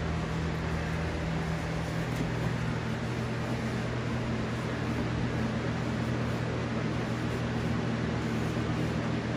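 Steady mechanical hum over an even hiss, with a low drone that shifts slightly in pitch about two to three seconds in.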